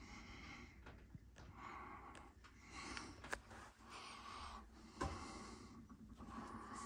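Soft breathing of a person close to the microphone, in and out at a steady pace, with a few light clicks and one sharper knock about five seconds in.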